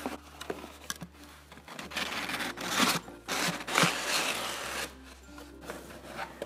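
Cardboard shipping box being pried open by hand: flaps scraping and rubbing against each other with rasping sounds and a few sharp clicks, loudest about three seconds in.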